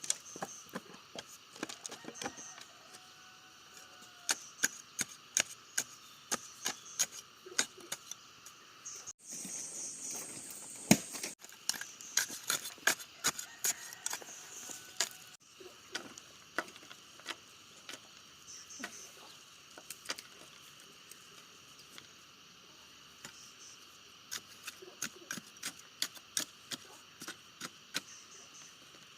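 Irregular sharp wooden clicks and knocks of bamboo being handled and worked, coming thickest in the middle. A steady high-pitched hum runs behind them.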